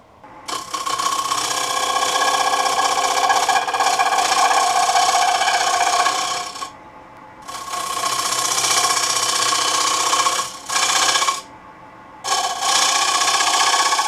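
A gouge cutting into a spinning alder plate on a wood lathe: a loud, continuous rasping hiss of the tool peeling shavings. The cut stops twice for under a second, about halfway through and again near the end, and resumes.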